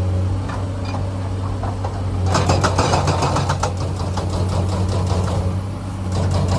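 Komatsu excavator's diesel engine running steadily under load, with a burst of rattling, clattering rock about two seconds in lasting over a second, and more clatter starting near the end.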